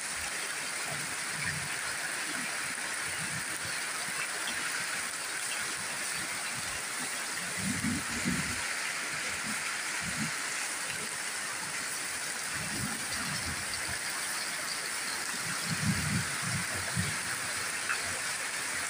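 Heavy rain pouring steadily onto corrugated-metal roofing and the ground, with water streaming off a roof edge. A few dull low thuds stand out now and then.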